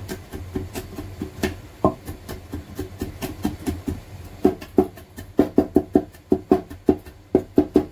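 Kitchen knife chopping garlic cloves on a wooden cutting board, mincing them finely. Uneven knocks at first, then from about halfway a quicker, louder run of about four to five chops a second.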